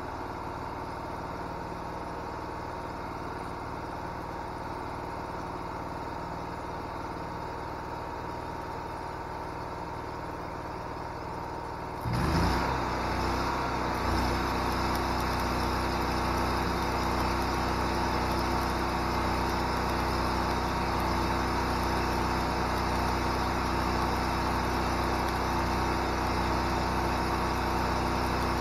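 Hobart Champion Elite engine-drive welder running at idle. About 12 seconds in, a stick-welding arc is struck: the engine speeds up under the welding load, and the steady crackle of the arc runs over the engine from then on.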